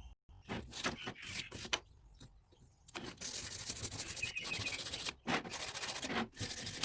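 Teak wood being sanded by hand with 400-grit sandpaper: rubbing strokes, a few short ones at first, then steadier sanding from about three seconds in.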